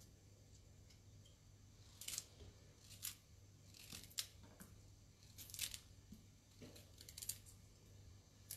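Faint, crisp crackling and snapping as a raw artichoke is trimmed by hand with a small knife and its tough outer leaves are pulled off: short crackles every second or so, some in quick clusters.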